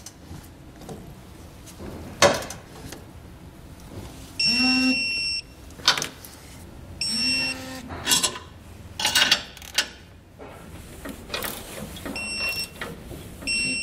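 Electronic torque wrench beeping as bolts on the air-spring brackets come up to set torque: a long beep about four seconds in, a shorter one a few seconds later, and two short beeps near the end. Sharp clicks and knocks from the wrench on the hardware come in between.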